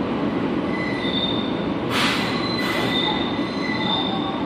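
Kobe City Subway 3000 series train running, a steady rumble with wheels squealing in thin high tones that come and go. A short hiss sounds about two seconds in.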